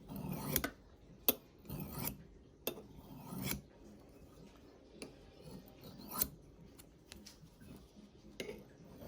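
A steel knife blade scraped across the rough unglazed foot of a ceramic coffee mug to sharpen it: a quick run of rasping strokes with sharp clicks in the first few seconds, then fewer and fainter scrapes.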